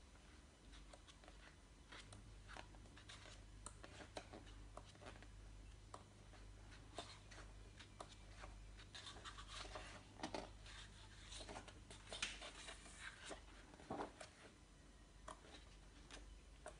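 Faint rustling and soft flaps of heavy paper pages being turned in a large photo book, with many small ticks of paper being handled, busiest in the second half.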